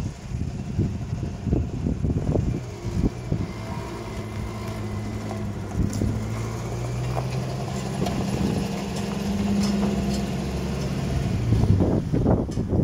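Pickup truck engine running as the truck drives slowly over a dirt track, a steady hum that falls away about a second before the end as it pulls up. A few clicks follow near the end.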